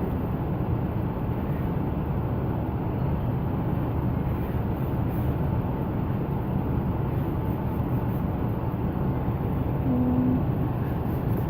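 Steady low rumbling background noise with no clear rhythm, and a brief low hum about ten seconds in.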